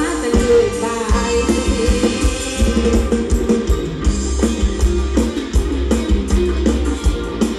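Live mor lam band music with a drum kit and bass keeping a steady beat; a singing voice trails off about a second in and the band plays on.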